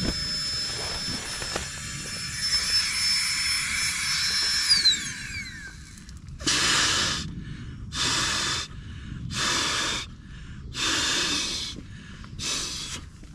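A small battery air pump runs with a steady whine while inflating a Flextail Zero Pillow, then winds down with a falling pitch about five seconds in. Then five puffs of breath are blown into the pillow, about one every second and a half.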